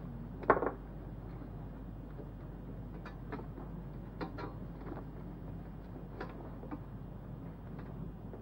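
Handling noises as a denim jacket and a bag with metal fittings are gathered up: a sharp knock about half a second in, then a few light clicks and rustles, over a steady low hum.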